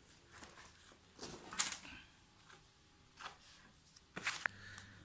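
Packaging and drone accessories being handled: soft rustles and light clicks in short bursts, loudest about a second and a half in and again just after four seconds.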